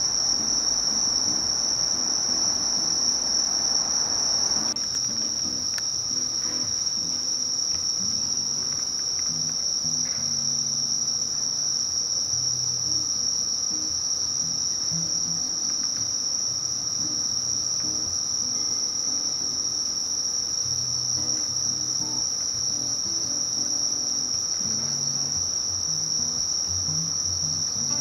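A night-singing cricket or katydid trilling: one unbroken, high-pitched, steady note. A faint rushing hiss underneath stops about five seconds in.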